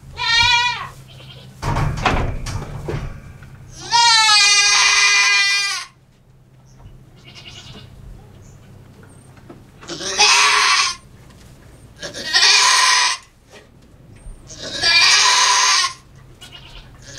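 Goat doe in labour crying out while pushing: a wavering bleat at the start, a long loud bleat about four seconds in, then three hoarse, breathy cries a couple of seconds apart. A low thump and rustle in the straw sounds about two seconds in.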